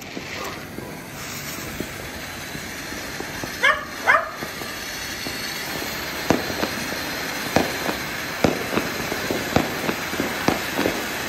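A fountain firework spraying with a steady hiss, then from about halfway on a run of sharp crackling pops, a few each second. Two short barks come about four seconds in.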